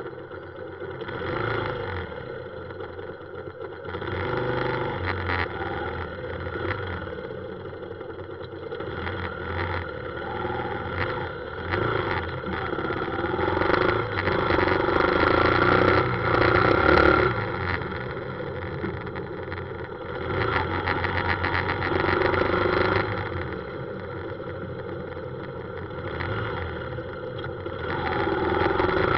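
Motorcycle engine running while riding through city traffic, with the sound of the surrounding cars and scooters. It grows louder around the middle and again near the end as the throttle opens.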